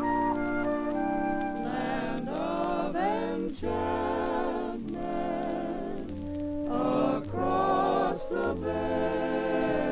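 Soundtrack music: sustained notes, with singing voices coming in about two seconds in.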